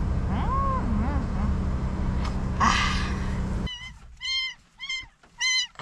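A steady low hum with a few faint calls, then about two-thirds of the way through a sudden change to a very young calico kitten meowing over and over: short high-pitched meows about half a second apart.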